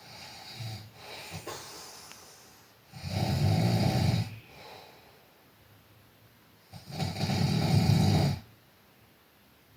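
White German Shepherd snoring: two loud snores about four seconds apart, each lasting over a second, with quieter breathing between.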